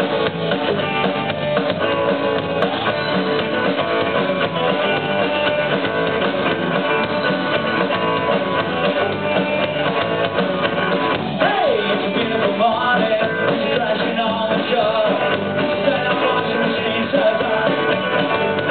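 Live rock band playing: electric guitar, bass guitar and drum kit, with a sung vocal coming in about two-thirds of the way through.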